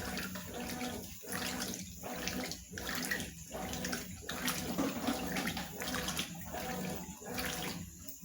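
Consul washing machine agitating a load of jeans in water: a steady motor hum under rhythmic sloshing strokes, about one every 0.7 s, stopping shortly before the end.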